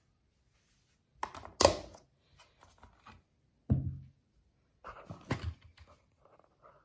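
Glass teapot being handled on a table: sharp clinks and knocks, the loudest about one and a half seconds in, then a dull thunk near the middle as the pot is set down, and a few more knocks later.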